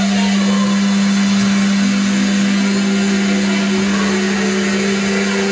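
Live harsh noise through a theatre sound system: a loud, steady low feedback tone from the microphones and speakers, held over a dense hiss, with fainter higher tones coming and going.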